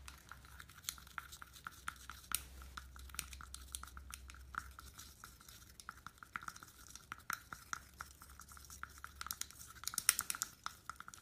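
A small spatula stirring a thick lip creme mixture of mineral powder and liquid in a small glass beaker, scraping and ticking against the glass in many quick, light clicks, with a denser flurry about ten seconds in.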